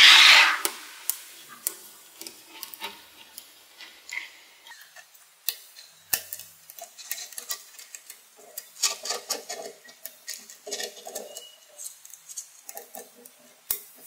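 Small neodymium magnetic balls clicking and snapping into place one after another, an irregular run of sharp metallic ticks, as a strand of balls is wrapped around the base of a column of balls. A louder clatter of balls comes right at the start.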